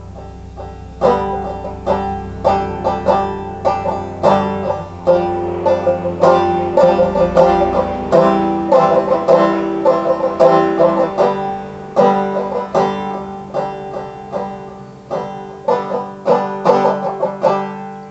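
Banjo playing an instrumental break: a steady run of quick plucked notes in a country/bluegrass style.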